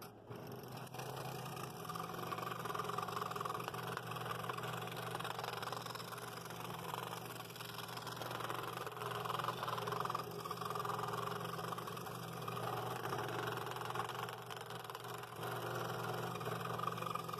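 Scroll saw running with a number 3 blade, cutting the outline of a layered wood blank: a steady motor hum under a rasping cutting noise that rises and falls.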